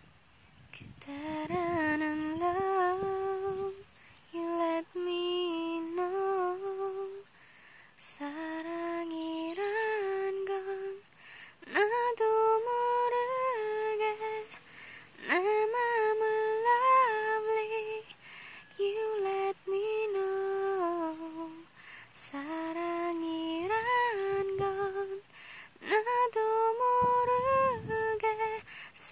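A woman singing a slow, gentle melody in short phrases of one to three seconds, with brief pauses between them.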